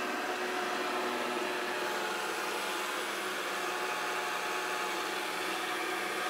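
Samsung SR8751 robot vacuum cleaner running, a steady whir with several constant whining tones over it.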